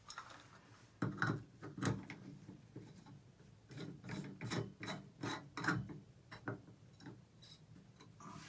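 Irregular clicks, knocks and scraping as a chrome handle is fitted onto a Price Pfister tub-and-shower valve stem and its screw is driven in with a screwdriver. The sharpest knocks come about a second in and again between four and six seconds.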